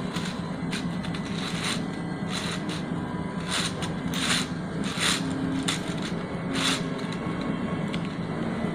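MINGDA 3D printer running a print: a steady stepper-motor hum with short swishes from quick head moves, roughly one a second.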